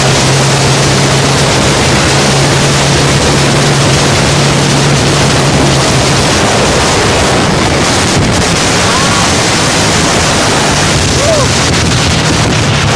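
Honda XRM125 Fi's single-cylinder four-stroke engine running through an aftermarket Organsport power pipe exhaust while the motorcycle is ridden, half buried in heavy wind noise on the bike-mounted phone's microphone. Its steady low note changes about six seconds in.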